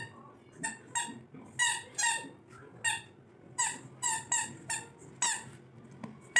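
Rubber squeaky dog toy being chewed by a Labrador puppy, giving about a dozen short, sharp squeaks, often in quick pairs as it is bitten and let go.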